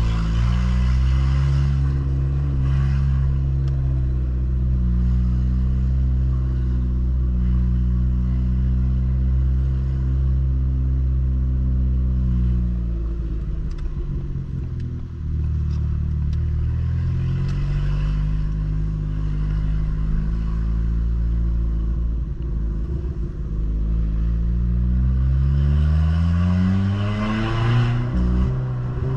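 Ford New Fiesta's engine and exhaust, modified with a diffuser ahead of the mufflers, rumbling while driving. It holds steady revs for about twelve seconds, drops as the throttle lifts, then revs rise under acceleration near the end before falling back.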